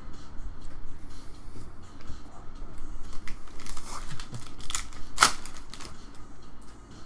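Trading card pack wrapper being torn open and crinkled: a run of sharp rips and crackles from about three seconds in, the loudest just past five seconds.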